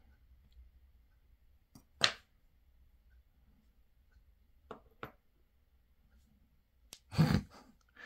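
About five separate light, sharp clicks of steel tweezers and tiny brass lock pins from a padlock core tapping into a pin tray and onto the desk, the loudest about two seconds in and a pair about five seconds in. Near the end comes a short, breathy vocal sound.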